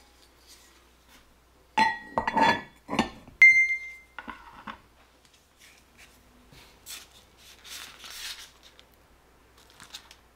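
Kitchenware clinking: several sharp clinks with ringing tones about two to three and a half seconds in, the last and loudest ringing briefly, then a few light clicks and a faint hiss.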